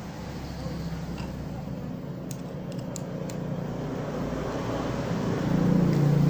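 A steady low engine-like hum that grows steadily louder, with a few faint light clicks near the middle.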